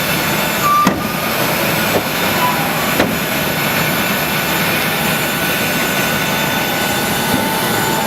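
Jet engines in reverse thrust: a loud, steady rushing noise, with a couple of short knocks about one and three seconds in.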